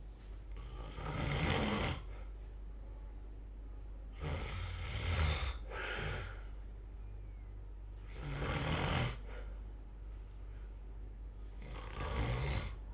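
A person snoring: four long snores, one about every four seconds, with quieter breathing between them.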